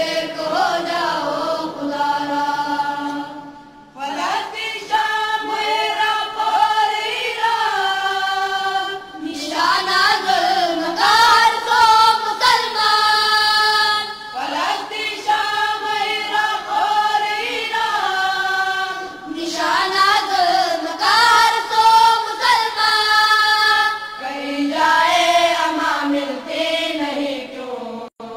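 Voices singing a chant in long melodic phrases that glide up and down, each lasting a few seconds, with short breaks between them.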